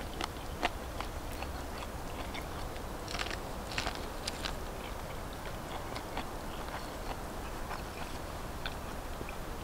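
A person biting into and chewing grilled corn on the cob, with crisp crunching bites clustered about three to four and a half seconds in, then softer scattered chewing clicks.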